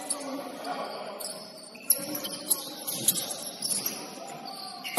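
Basketball being dribbled on a hardwood gym floor, with three sharp bounces a little over half a second apart about two seconds in, and sneakers squeaking in short high chirps as players move.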